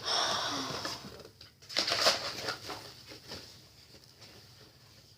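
Plastic bait packaging rustling and crinkling as it is handled, loudest in the first second and again about two seconds in, then fading away.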